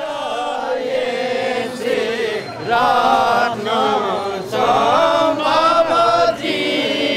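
A group of men's voices chanting a devotional song together, the melody gliding up and down, growing louder about three seconds in.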